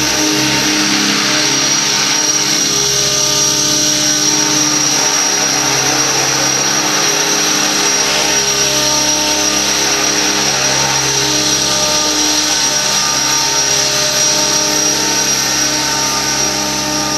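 Align T-Rex 600 radio-controlled helicopter in an Airwolf scale fuselage in flight: a steady high-pitched whine of the drivetrain over the whir of the main and tail rotors, holding one speed throughout.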